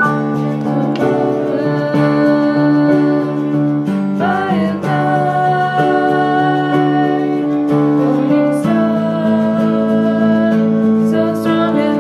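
A slow hymn sung by a voice over sustained, held accompaniment chords, the notes changing every second or few.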